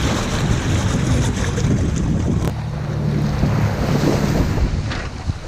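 Strong wind buffeting the microphone over choppy lake water, a dense steady rush. A steady low hum stands out for a couple of seconds in the middle.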